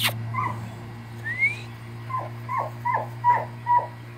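Airedale Terrier puppies yipping and whimpering: a sharp click at the start, a few scattered high calls, then a quick run of about five short yips in the second half.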